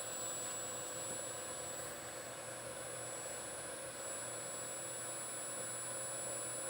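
Steady machine hum with thin high-pitched whining tones, as from a CNC machine's powered-up drives and electronics standing at rest.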